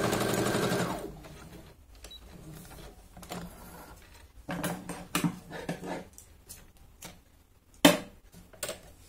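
Brother FS-101 sewing machine stitching steadily, then stopping about a second in. Light rustling and a few clicks follow as the fabric is handled, with one sharp knock near the end.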